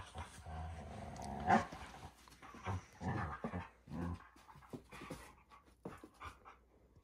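Standard poodle making rough, low vocal sounds and breathing hard while play-fighting with a cat, followed by a run of short taps and scuffles that die away near the end.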